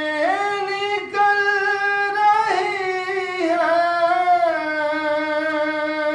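A man singing an Urdu naat, a devotional poem in praise of the Prophet, into a microphone. He draws out long held notes, sliding between pitches, with the last note held for the final couple of seconds.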